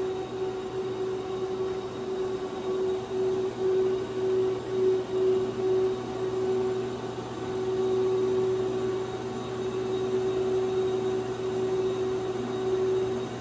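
Fanuc R2000iB/210F industrial robot's servo drives whining as the arm swings up and extends: a steady mid-pitched whine over a low hum, pulsing in strength for the first few seconds and then holding steadier.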